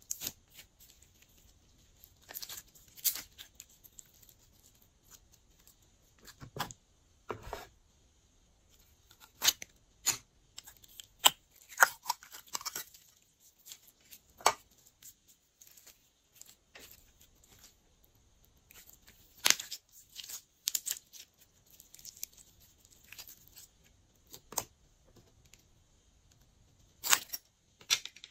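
Glossy slime being kneaded and stretched by hand, making irregular sticky crackles and pops with quiet gaps between them.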